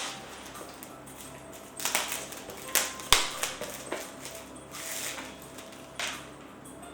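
Handling noise from a tarot deck's cardboard box and cards: a series of short rustling scrapes, with a sharp click about three seconds in.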